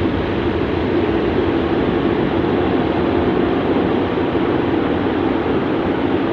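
Kärcher rollover car wash running, with its rotating side brush sweeping along the car's side. Heard from inside the cabin as a loud, steady, rushing noise.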